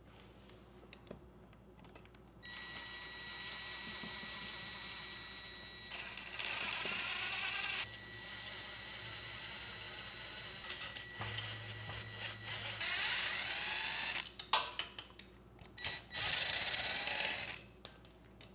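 Ryobi 1/4-inch cordless impact driver backing out the valve cover bolts on a Briggs and Stratton OHV engine. It runs in several spells, with a steady motor whine and three louder stretches of a second or two each.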